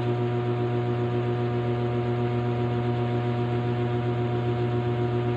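Steady electrical hum with a stack of even overtones, unchanging throughout, typical of mains hum.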